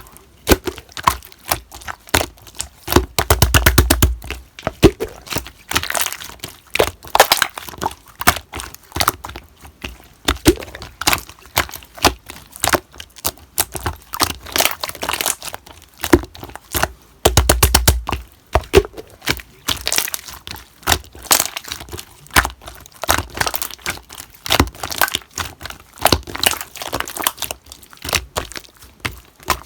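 Slime being squeezed, stretched and poked by hand, making many sharp clicks and crackles, with two runs of rapid clicking, about three seconds in and again about seventeen seconds in.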